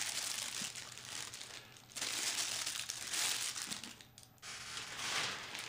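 Thin clear plastic bag crinkling and rustling as it is handled, in irregular bursts with brief lulls about two and four seconds in.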